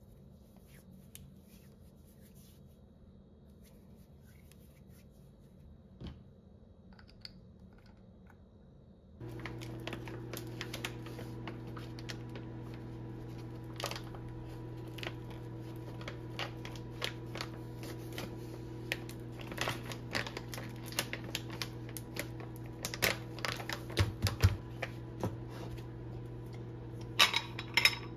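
Faint handling sounds, then from about nine seconds in a steady low hum with crinkling and sharp clicks as a foil bag of ground coffee is opened. Near the end come metallic clicks and clinks as an aluminium stovetop moka pot is handled.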